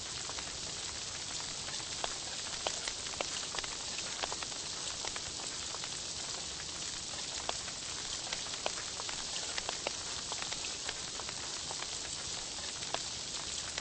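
Meat sizzling on a Korean barbecue grill: a steady hiss with frequent small crackles and pops.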